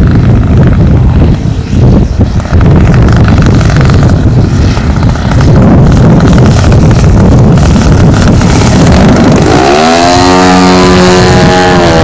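Strong wind buffeting the microphone, with the ZDZ 80 two-stroke petrol engine of a 33% scale CAP 232 RC plane buzzing underneath as it passes low. Near the end the engine revs up sharply, its pitch climbing, then holds a steady high note as the plane pulls up.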